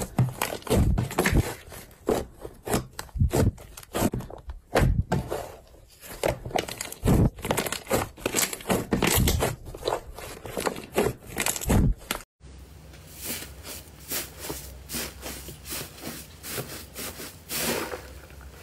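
Fluffy pink slime kneaded and pressed by hand, giving irregular squishes and small pops. About twelve seconds in the sound cuts to a second slime squeezed in a bowl, with finer, denser crackly squishing over a low steady hum.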